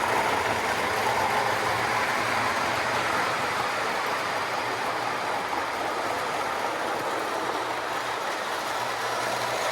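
Lionel Santa Fe diesel toy locomotive running under conventional power on O gauge tubular track: a steady, even rolling rumble of wheels on the rails, with a steady low hum underneath.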